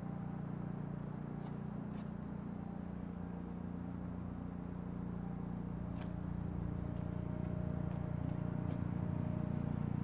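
A steady low hum that slowly grows louder, with a few faint ticks.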